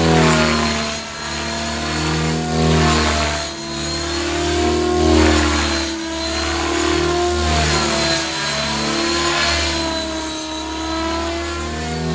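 Align T-Rex 550 electric RC helicopter in flight, its motor and drive gears, a 112-tooth main gear and 12-tooth pinion, whining over the rotor hum. The whine's pitch wavers up and down and the loudness swells and fades as it flies past.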